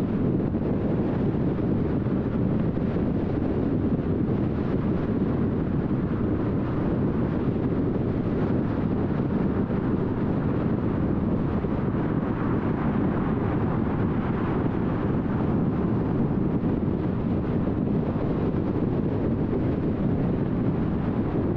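Car driving along the road: a steady, even rumble of tyre and road noise with engine hum, with no distinct events.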